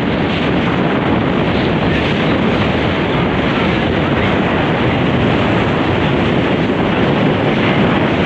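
Loud, steady rushing of wind on the microphone and water noise from a small aluminium tinny under way across choppy estuary water.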